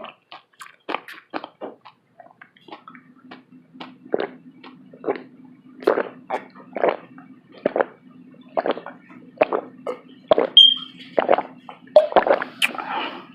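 A person gulping down water, one swallow about every second, to cool a mouth burning from spicy food. A faint steady low hum starts about three seconds in.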